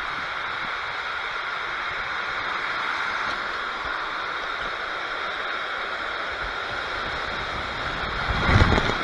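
Steady rush of water and a rider sliding down an enclosed water-slide tube, with a louder whoosh near the end.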